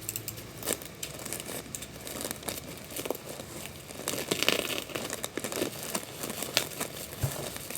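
Gift packaging being opened by hand: crinkling, rustling and tearing with scattered sharp clicks, loudest in a short burst of rustling about four and a half seconds in.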